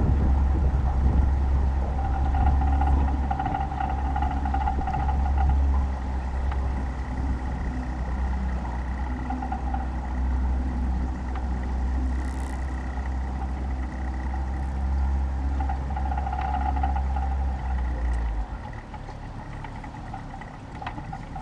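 A motor running steadily with a heavy low rumble and a steady higher hum, the rumble cutting off abruptly about eighteen seconds in.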